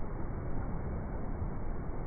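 Niagara Falls' water pouring over the brink in a steady, unbroken rush with a deep rumble.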